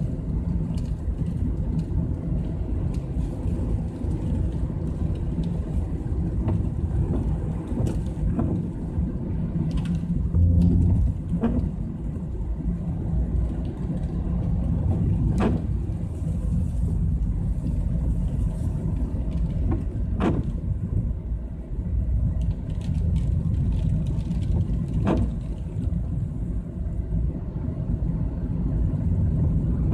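Car running along at a steady speed on a wet road, heard from inside the cabin: a steady low engine and tyre rumble, with a few sharp clicks and a brief louder bump about ten seconds in.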